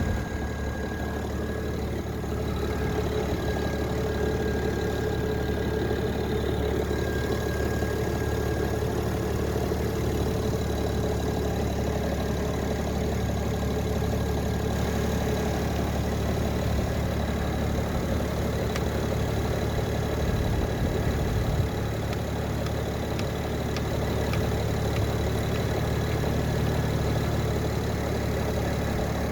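Car engine idling steadily, with a thin, steady whine from a battery charger connected to the car.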